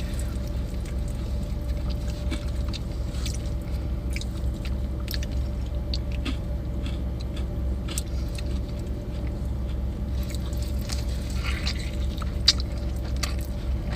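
Close-miked chewing of an In-N-Out burger, with scattered wet smacks and small clicks, a few sharper ones near the end, over a steady low hum.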